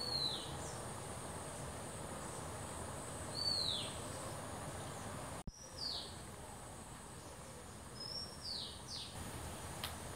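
A bird calling with short downward-sliding whistled notes, four of them a few seconds apart, over a steady background of insects with a thin high hum.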